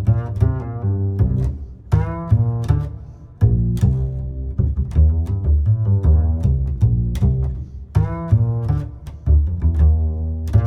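Instrumental background music with a strong bass line and short, sharply struck notes in a steady rhythm.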